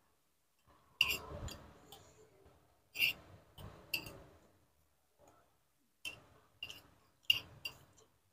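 Metal spoon clinking and scraping against a soup bowl while eating, about eight sharp clinks in irregular groups with quieter handling sounds between.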